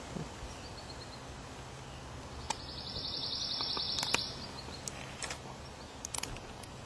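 A bird's rapid, high, dry trill lasting about a second and a half midway, over steady background noise, with a few short faint clicks.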